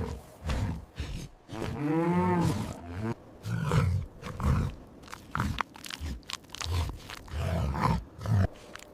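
Animal calls: one pitched, arching call about two seconds in, then a series of short low grunts.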